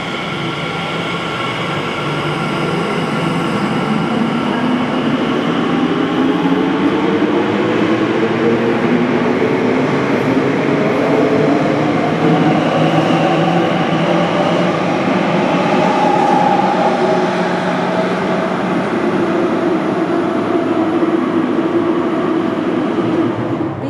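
Elizabeth line Class 345 electric train pulling away from the platform, its traction motors giving a whine that rises in pitch as it accelerates. Under the whine, the wheels run steadily on the rails.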